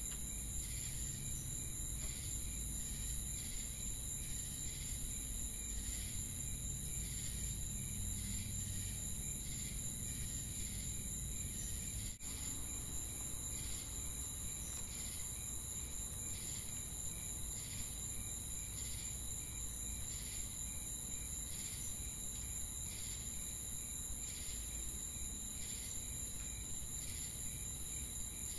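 Crickets chirping in a steady high-pitched trill with evenly repeating pulses, from an added nature-ambience track. A brief dropout about twelve seconds in.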